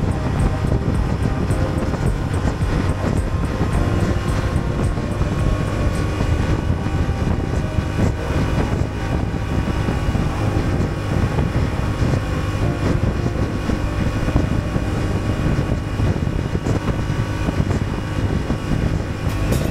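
A 2023 Honda Transalp's parallel-twin engine running steadily while the motorcycle is ridden along the road, with no change in revs.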